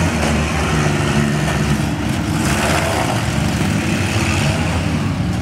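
Many demolition-derby minivan engines running and revving at once, a dense steady engine noise with no single vehicle standing out.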